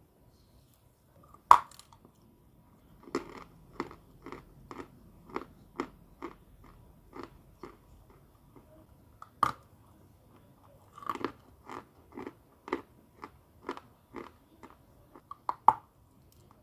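A person biting into chalk and chewing it: two sharp loud snaps, each followed by a run of steady crunching chews, about two a second.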